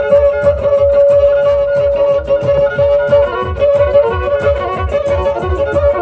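Black Sea kemençe playing a fast folk dance tune, a held note sounding under the melody, over a fast, even low beat.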